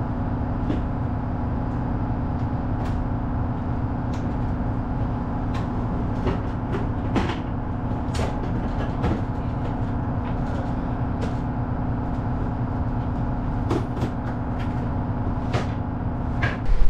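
Trawler's engine running with a steady drone and hum heard inside the wheelhouse, with a dozen or so sharp knocks and clicks from a wooden cabinet and its drawers being lifted and handled.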